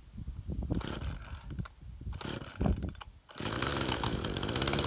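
Husqvarna 236E two-stroke chainsaw being pull-started, its first start on freshly replaced fuel lines: uneven pulls and coughs, then about three and a half seconds in the engine catches and runs steadily.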